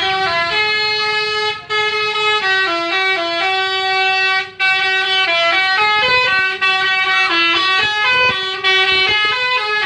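A bus's basuri telolet horn playing a melody, one note at a time with sustained stepped notes, breaking off briefly twice between phrases.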